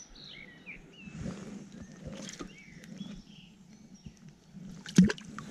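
Small birds chirping in short gliding calls over a steady low wash of flowing river water, with one sharp knock about five seconds in, the loudest sound.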